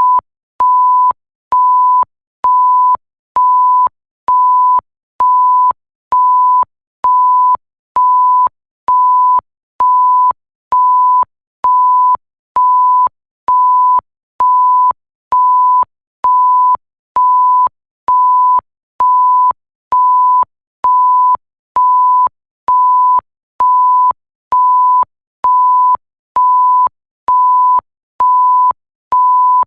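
Electronic bleep sound effect: a single steady high-pitched pure tone repeating about once a second, each beep a little over half a second long with a short gap between, and a faint click as each one starts and stops.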